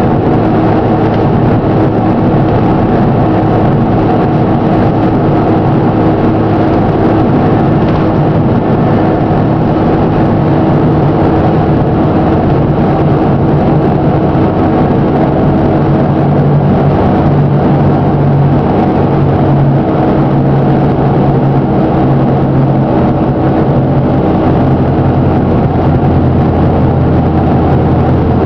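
Diesel engine of a Plaxton President double-decker bus running, with the bad engine knock it is known for. The note stays steady, shifting a little in pitch partway through.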